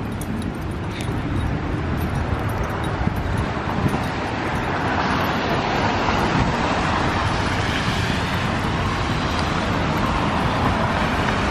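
Steady road traffic noise, growing slightly louder over the first half and then holding steady.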